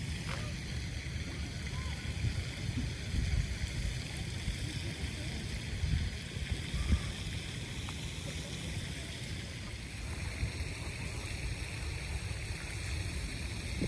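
Wind buffeting the microphone outdoors: an uneven low rumble with a steady hiss over it, and faint voices in the background.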